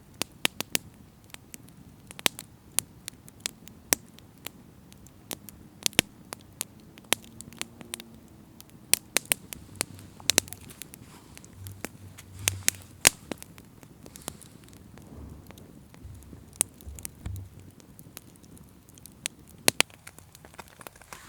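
Small campfire crackling, with sharp irregular pops and snaps a few times a second.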